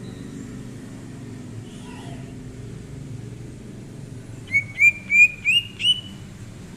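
Cucak ijo (green leafbird) singing a quick phrase of five or six short, rising whistled notes about four and a half seconds in, over a steady low rumble.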